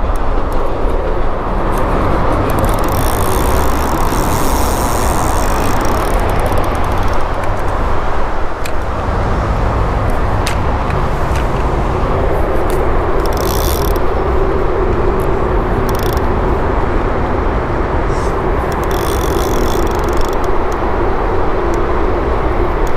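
Steady road traffic noise, a continuous rumble that holds level throughout. Over it come a few brief high-pitched whirring bursts.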